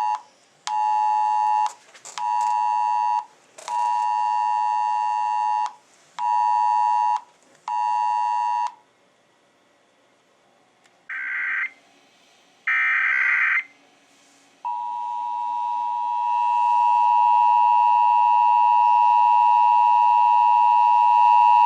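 Emergency alert two-tone attention signal. First it comes from the phones as the Wireless Emergency Alert tone, pulsing on and off about five times and stopping about nine seconds in. Then two short screeching data bursts, the Emergency Alert System header, are followed from about fifteen seconds by the continuous EAS two-tone attention signal, which swells and then holds steady.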